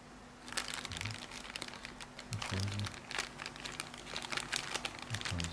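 Crinkly packaging rustling with a run of small handling clicks and taps as the speaker's accessories are unpacked, starting about half a second in.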